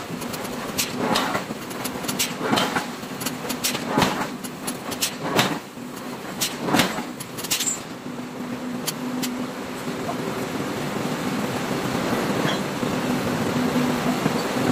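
Metal knocks and clanks from forging work, several a second at uneven intervals, for the first half. Then a steady machine hum with a low held tone takes over and grows a little louder.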